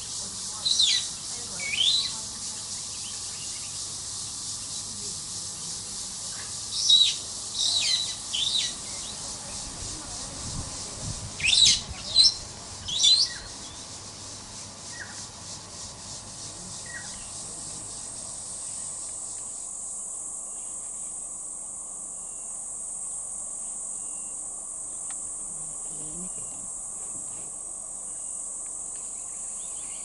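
Wild birds chirping: short, high, sweeping notes in ones, twos and threes during the first half, over a steady high insect hiss. Around the middle the chirps stop and a steady high insect drone takes over.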